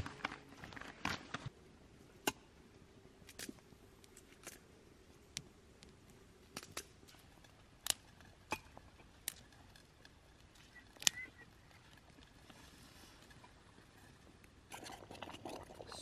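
Faint, scattered sharp clicks and small snaps, a dozen or so spread apart, the loudest about eleven seconds in, from a knife working a wooden stick. Near the end comes a busier stretch of scraping and clinking, a spoon stirring in a metal pot.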